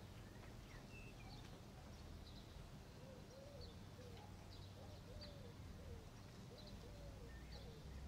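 Faint cooing of a dove, a steady string of short coos starting about three seconds in, with a few faint high bird chirps over quiet room tone.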